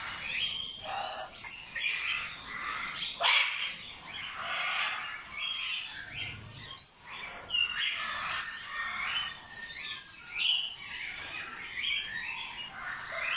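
Many caged parrots and other aviary birds chirping and squawking at once in short, overlapping calls, with louder squawks about three seconds in and again about ten seconds in.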